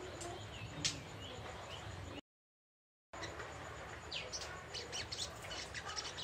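Young little spiderhunter (sogok ontong) twittering in short, high chirps and quick sliding notes, coming faster in the second half. The sound cuts out completely for about a second after two seconds in. A steady low hum runs underneath.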